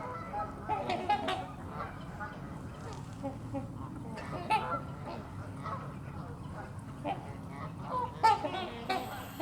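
A flock of waterfowl calling, with many short calls overlapping and the loudest one a little after eight seconds in.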